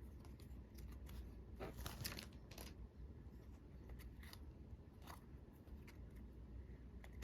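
Faint handling of freshly opened Magic: The Gathering cards: a handful of soft, sharp card flicks and snaps at irregular intervals as the cards are slid and turned over one by one.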